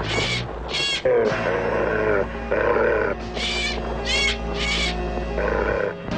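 Animal cries over background music: short, high, harsh calls, once near the start and three in quick succession about three and a half seconds in, and a lower, falling, snarl-like cry about a second in.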